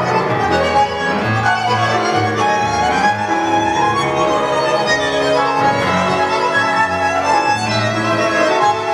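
Tango music played by a small ensemble: violin carrying the melody over bandoneon and double bass, playing without a break.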